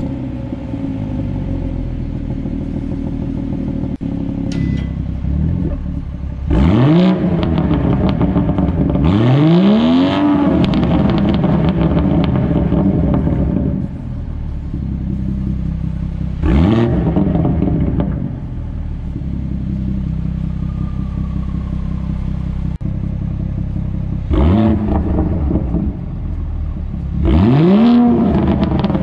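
2018 BMW 440i's turbocharged 3.0-litre inline-six, breathing through a BMS intake and M Performance exhaust, idling between five quick throttle blips, each a rising then falling rev, in a concrete parking garage. The first two blips come with the exhaust valves closed in comfort mode, the last three with the valves open in sport mode.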